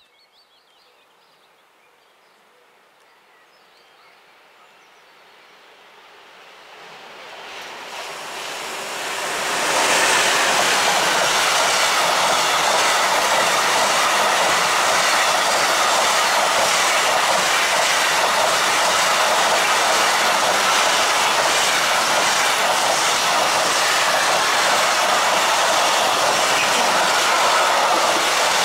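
Container freight train hauled by the E594-016 electric locomotive approaching, growing steadily louder, then passing close by from about ten seconds in. The wagons run past with a loud, steady rumble and clatter of wheels on the rails.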